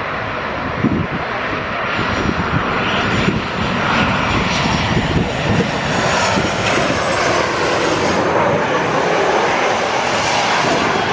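Engines of an arriving airliner passing on approach: a loud rushing roar that swells about two seconds in and then holds, with a faint high whine on top.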